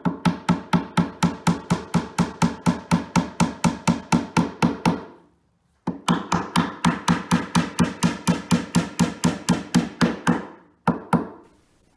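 Claw hammer tapping wooden dowels home into a white flat-pack shelf panel. The taps come quickly and evenly, about five a second, in two long runs with a short pause between them, then two last taps near the end.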